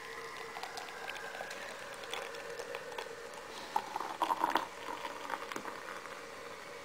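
Beer from a Heineken 5-litre mini keg sputtering and fizzing through a thin tube into a glass, which fills mostly with foam. There is a louder run of crackling spurts about four seconds in.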